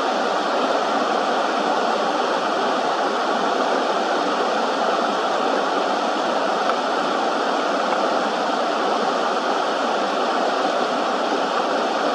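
Steady rush of flowing river water over shallows, an even hiss with no birdsong standing out.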